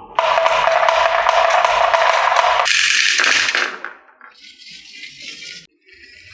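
Marbles rolling and clattering down a wooden HABA marble run track, a loud continuous rattle that changes character about two and a half seconds in, then fades to a fainter rattle near the end.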